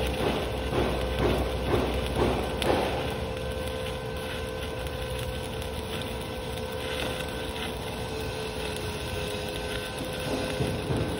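Stick-welding (SMAW) arc crackling and sizzling as a 2.6 mm LB52-18 low-hydrogen electrode burns in a vertical fill pass on steel plate, with a faint steady hum underneath. The crackle surges about twice a second for the first three seconds, then settles to a steadier sizzle.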